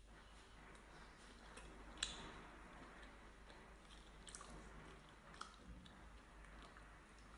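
A person chewing food quietly, with a few soft wet mouth clicks and one sharper click about two seconds in.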